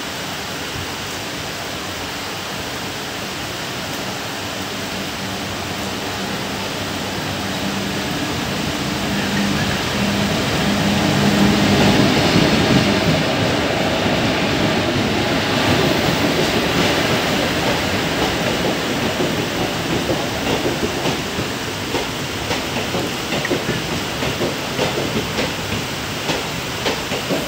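Indian Railways electric locomotive approaching and passing close with a steady hum that swells to its loudest about twelve seconds in. Passenger coaches then roll past with regular clacks of wheels over rail joints, over a constant hiss of heavy rain.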